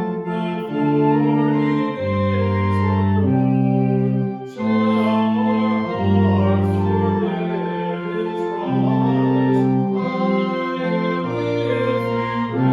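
Church organ playing a hymn in slow, held chords, with the bass notes changing every second or two.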